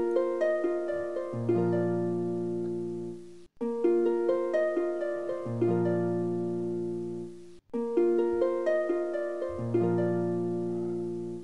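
Background music: a short plucked-string tune over low held notes, looping about every four seconds with a brief break between repeats.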